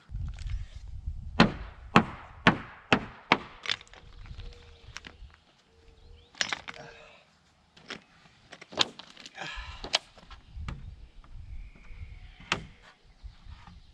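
Hammer blows on wood: a quick run of about six strikes, two or three a second, followed by scattered knocks and brief scraping.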